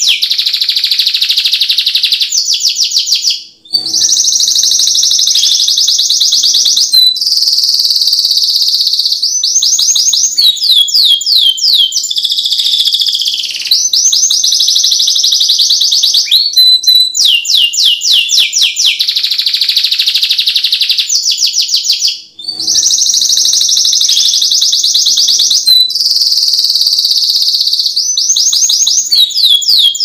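Domestic canary singing loudly in a continuous high-pitched song. The song is made of runs of rapid repeated down-slurred notes and long rolling trills. It breaks off briefly twice, once about three and a half seconds in and once about twenty-two seconds in.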